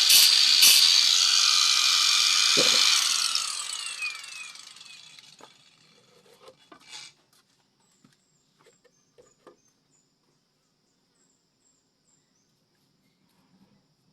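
An electric power tool running, switched off about three seconds in and spinning down with a falling whine until it stops. A few light clicks and knocks follow, then it is quiet.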